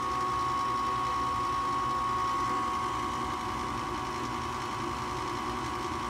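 Draft inducer motor of a Rheem 80% gas furnace running steadily with a constant whine during the pre-purge. It is pulling the vacuum that holds the pressure switch closed before ignition.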